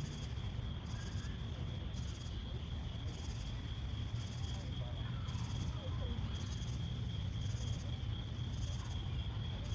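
Insect chorus: a steady high trill with a higher buzzing pulse that repeats a little more than once a second, over a low rumble.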